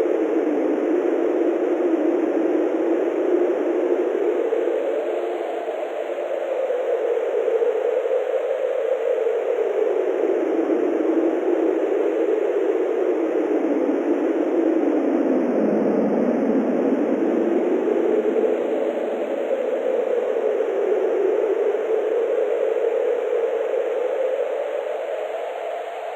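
Synthesized wind: continuous filtered noise whose pitch rises and falls slowly, like gusts howling.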